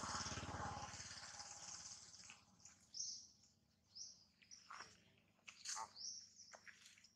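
Birds chirping: short, sharply rising high calls repeated about once a second, over a rough low noise that fades in the first couple of seconds.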